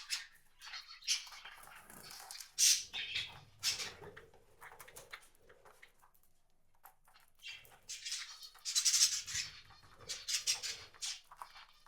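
Small wild birds at a feeder: irregular short chirps and rustling wing flutters, loudest in a flurry about a quarter of the way in and another about three-quarters through.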